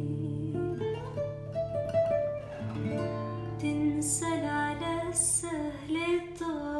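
A woman singing a slow Arabic melody over her own acoustic guitar chords.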